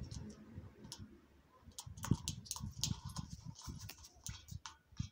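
Jackdaw pecking at food held under its foot on a balcony railing: irregular sharp taps and clicks of its beak, coming more often from about two seconds in.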